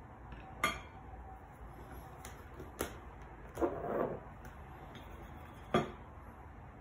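A thin paintbrush brushing across canvas, a short scratchy sound about halfway through. Around it come three sharp, light clicks of hard objects knocking.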